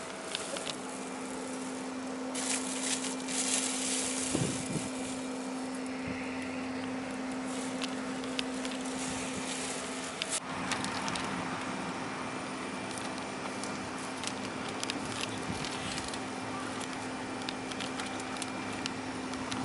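A steady mid-pitched hum with crackling and rustling over it, loudest a few seconds in; the hum breaks off briefly about ten seconds in and then resumes.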